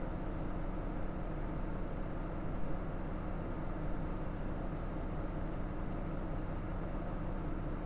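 Nissan Diesel JP city bus's diesel engine running steadily under way, heard from inside the passenger cabin with road noise.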